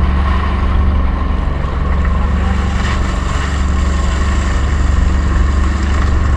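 Outrigger fishing boat's engine running with a steady low drone.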